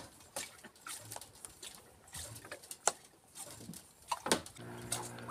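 Scattered light taps and clicks as a fishing handline is hauled in by hand over the side of a small wooden boat. About four and a half seconds in, a steady motor hum sets in.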